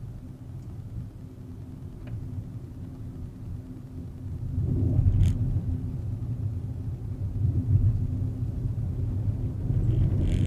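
Volkswagen Vento with a 1.2 TSI turbocharged petrol engine driving, a steady low rumble of engine and road noise that grows louder about halfway through. One sharp click about five seconds in.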